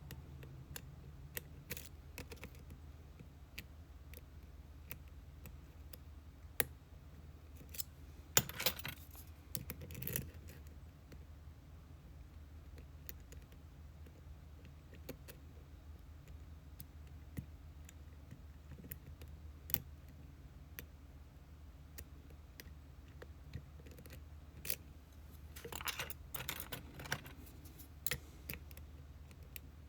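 Lock picking an Abus C83 padlock repinned with spool drivers: scattered light metallic clicks of the pick and tension tool on the pins, with two short bursts of metallic rattling, about eight seconds in and again near twenty-six seconds.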